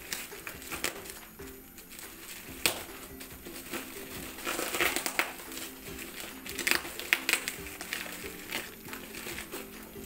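Plastic wrapping and packing tape on a cardboard parcel crinkling and crackling irregularly as hands pull them open, with several sharp crackles.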